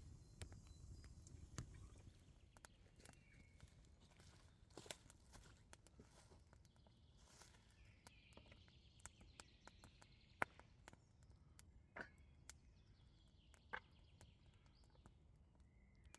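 Faint wood fire crackling, with a few scattered sharp pops, over faint bird chirps.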